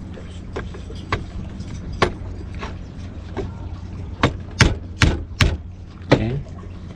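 Rubber mallet tapping a Spinlock rope clutch housing to seat and align it: a series of sharp knocks, scattered at first, then four quick taps about half a second apart and a last one. A steady low hum runs underneath.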